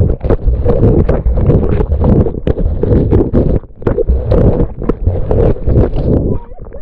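Water churning and slapping against an action camera's waterproof housing held down in the water beside a moving jet ski: a loud, muffled rush with rapid, irregular knocks, easing briefly about halfway through and again near the end.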